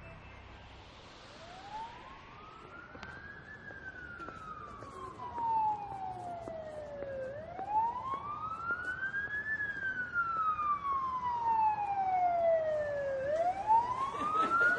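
Ambulance siren wailing in slow sweeps, each a quick rise in pitch and a longer fall, about six seconds per cycle, growing steadily louder.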